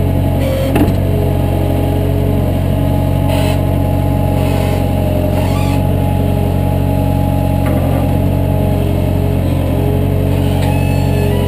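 An engine running steadily at an even speed, a low drone without revving; a brief knock about a second in.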